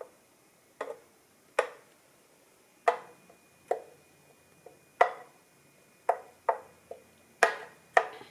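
Plastic blender jar knocked and tapped about a dozen times at irregular spacing while thick pancake batter is coaxed out of it onto a griddle.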